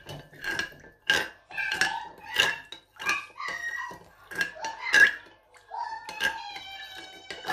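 Metal teaspoon stirring jelly mix in a glass bowl, clinking again and again against the glass. Near the end a voice makes a long, drawn-out sound that slowly falls in pitch.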